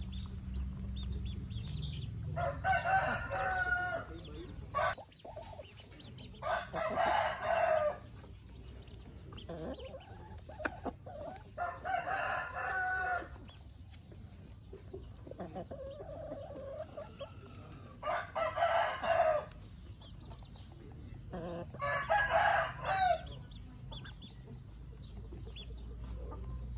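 Roosters crowing five times, each crow about a second and a half long, a few seconds apart.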